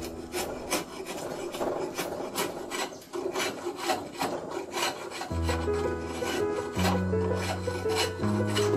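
A quick, even run of scraping strokes as a hand blade shaves a nibong palm bow stave. Background music plays underneath, with sustained low notes coming back in about five seconds in.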